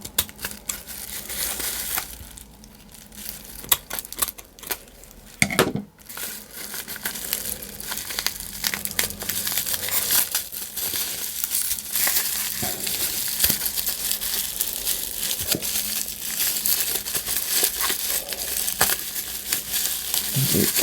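Packaging crinkling and crackling as a parcel is worked open by hand, with sharp snaps and a bit of tearing. It is quieter in the first few seconds and becomes steady, continuous crinkling from about six seconds in.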